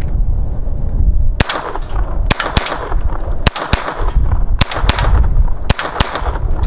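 Ruger Model 3600 .22 caliber double-action semi-automatic pistol fired rapidly: more than a dozen sharp shots begin about a second and a half in, some coming in quick pairs (double taps). Wind rumbles low on the microphone throughout.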